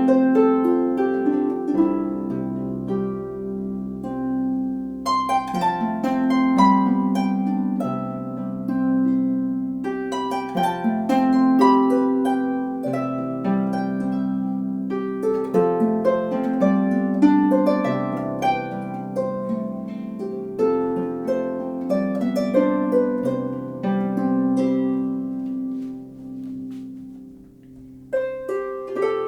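A 34-string Celtic lever harp playing a tune of plucked notes, bass notes held under a higher melody. The playing dies away near the end and then starts again.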